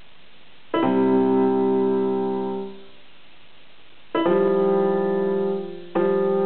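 Yamaha electronic keyboard played slowly: three notes or chords are struck, about a second in, about four seconds in and near the end, and each is held for a second and a half to two seconds before being let go.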